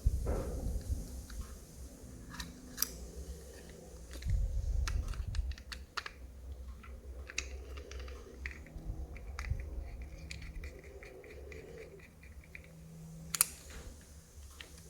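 Small plastic clicks, taps and scraping from handling a push-button wall switch and its wiring, with a sharper click a few seconds in and another near the end.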